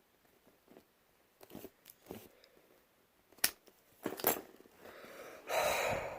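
Rubber mallet striking a bump key in a padlock: a few sharp separate knocks, then a scraping noise about half a second long near the end.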